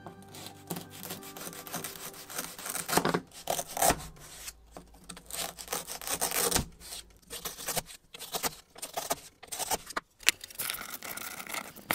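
Wooden toy bread knife sawing back and forth between the wooden slices of a toy loaf held together by Velcro pads: rasping strokes of wood rubbing on wood as the hook-and-loop joints are worked apart, with irregular knocks of the wooden slices.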